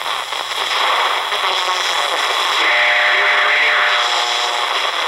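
Shortwave static and buzzing interference from a Redsun RP300 portable receiver's speaker as it is tuned up through the 31 m band, between stations. A little over halfway through, several steady tones sound above the hiss for about two seconds.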